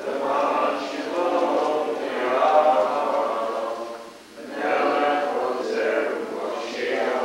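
A congregation singing a prayer together, with a brief pause between phrases about four seconds in.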